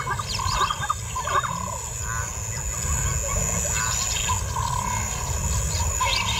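Bush ambience: scattered short bird chirps and a steady high insect whine over a low rumble.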